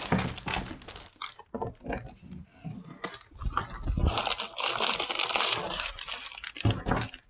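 Plastic bags of LEGO pieces being handled, with irregular crinkling of the bag film and small clicks, and a denser stretch of crinkling from about four seconds in.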